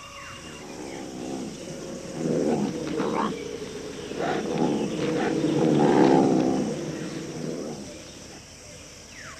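A big cat growling: one long, low rumbling call that swells to its loudest about six seconds in and fades away near the end.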